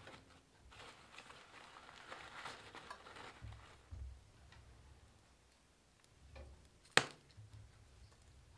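Wood being handled in the open firebox of a lit wood-burning stove: faint rustling and scraping of wood with a few light clicks, and one sharp knock of wood against the metal stove about seven seconds in.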